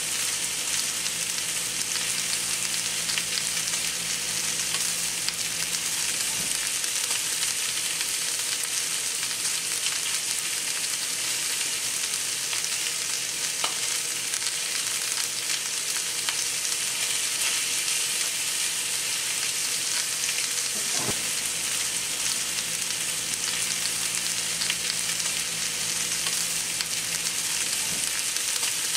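Two New York strip steaks and chopped garlic searing in a hot pan, with a steady sizzle and small crackles from the spitting fat.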